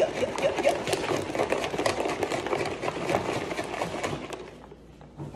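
Plastic shaker bottle of protein shake shaken hard by hand: a fast, rattling slosh that stops about four seconds in.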